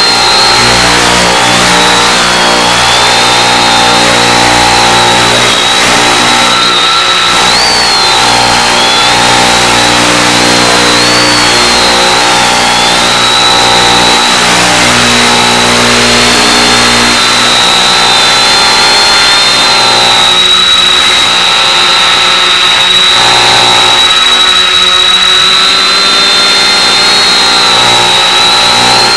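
Quadcopter electric motors and propellers hovering, a steady loud buzz of several tones over hiss as heard through an analog FPV video link's audio channel. A high whine wavers slightly in pitch as the motors make small corrections.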